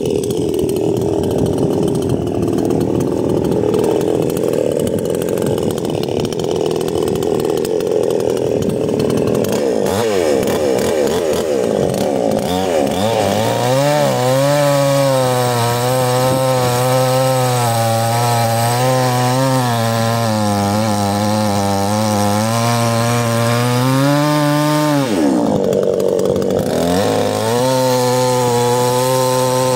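Two-stroke chainsaw running at high revs while cutting slices off a log. At first the sound is rough and uneven, then it settles into a steady high engine note about halfway through, with a brief drop in pitch near the end before it rises again.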